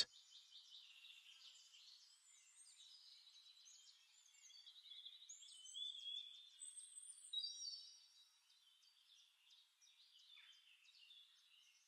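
Near silence, with only faint, scattered high-pitched sounds, loudest between about four and eight seconds in.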